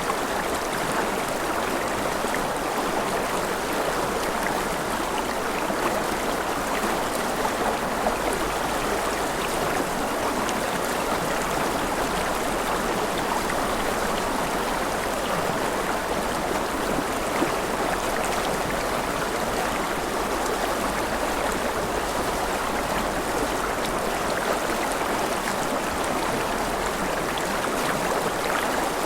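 Mountain river running over rapids: a steady rush of water, strongest in the middle range, with no change throughout.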